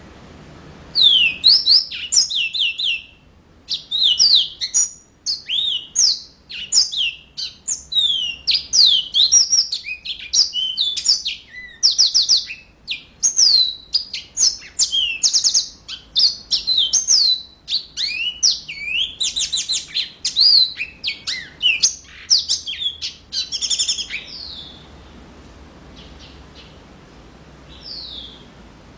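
Yellow-fronted canary (mozambique) singing a long, fast, continuous song of rapid trills and quick down-slurred whistled notes. It starts about a second in and stops about 24 seconds in, with one short note near the end.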